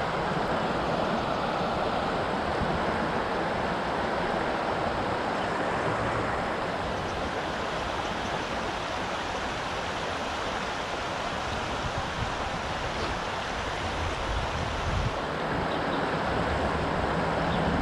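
River water rushing steadily over a shallow rocky riffle, with wind buffeting the microphone.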